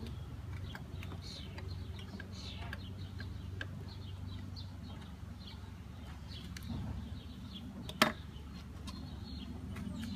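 Honeybees buzzing as a low steady hum, with short bird chirps scattered over it and one sharp click about eight seconds in.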